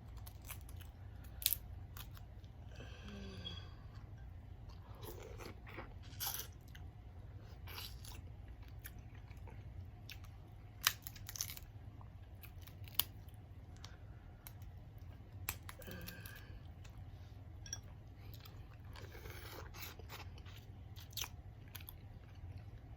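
Close-up chewing and crunching of seafood-boil food, with scattered sharp clicks and cracks between the chews.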